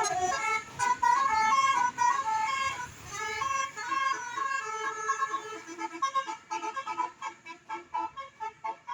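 Multi-tone 'telolet' bus horn playing a tune of stepped, held notes. It is loud for the first few seconds, then quieter and more clipped.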